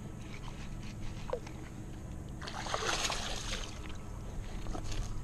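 A hooked bass splashing at the water's surface while it is reeled in, one burst of splashing lasting about a second near the middle.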